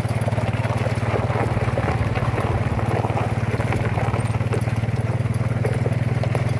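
Engine of an ATV train running at a steady speed, a low drone with a fast, even pulse.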